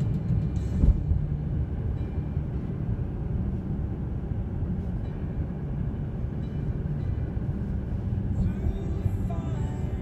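Train running, with a steady low rumble and a single sharp knock about a second in.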